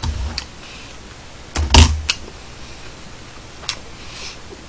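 Knocks and clicks of things handled on a desk close to the microphone, with one heavy thump just under two seconds in and a few sharp single clicks after it.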